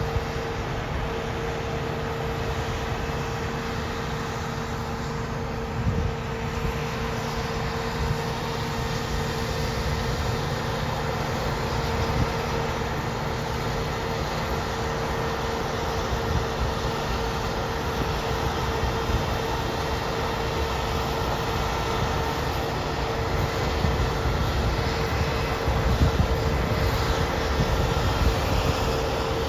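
John Deere T670 combine harvester running steadily while harvesting grain: a constant drone with a steady whine over it and a few light knocks.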